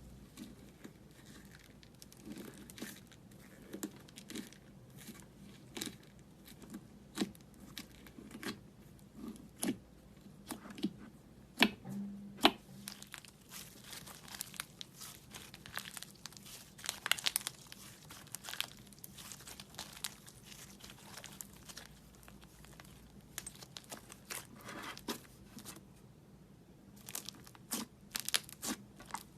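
Slime being squeezed and pulled by hand, giving irregular crackling and sharp popping snaps, with a few louder pops.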